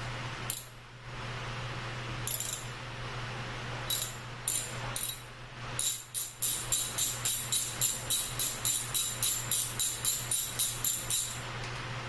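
Socket ratchet clicking as it works a brake caliper bolt with a 9/16 deep-well socket: a few scattered clicks, then from about halfway a quick, even run of about four clicks a second.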